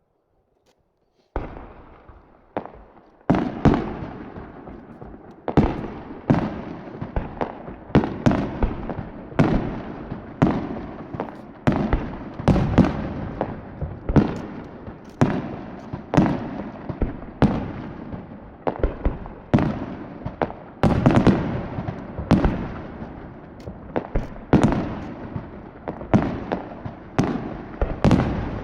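Aerial firework shells bursting one after another in a rapid barrage, starting about a second and a half in. There is a sharp bang every second or less, each one trailing off in a rumble.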